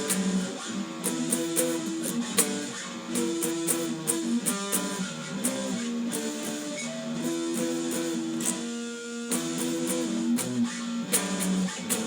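Electric guitar playing a power-chord riff in E minor: chords struck and held, with sharp percussive pick hits between them, including a percussive hit tried before the G chord.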